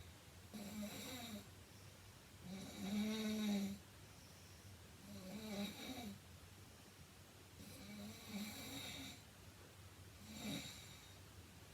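A heavy-set woman (105 kg) snoring in her sleep: five snores about two and a half seconds apart, the third the loudest.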